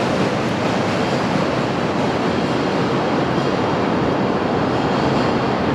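Steady running noise of a train moving along the track, an even rush with no breaks.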